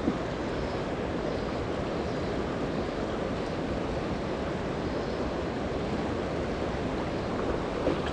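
Steady rushing of river water flowing over a shallow riffle, an even unbroken wash.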